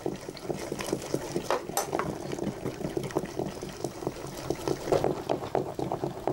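A spoon scraping and tapping a bowl as beaten egg is emptied into a pot of potato porridge bubbling on a wood fire, with many small irregular clicks throughout.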